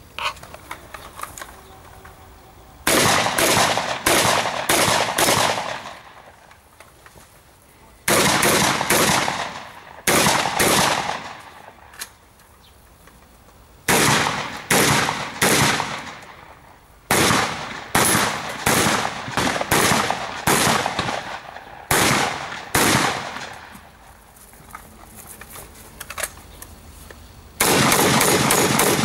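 Gunshots from a long gun fired in quick strings of several shots each, with gaps of a few seconds between the strings; each shot rings out briefly.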